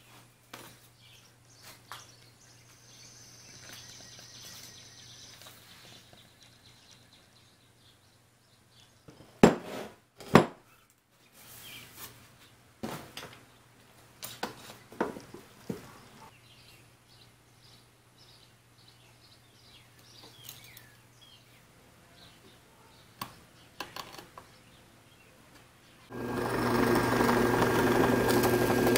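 Scattered light clicks and taps of hand work at a workbench, with two sharp knocks about ten seconds in and more small clicks while a bar clamp is set. Near the end a benchtop drill press motor starts and runs steadily at full level as its bit bores into walnut.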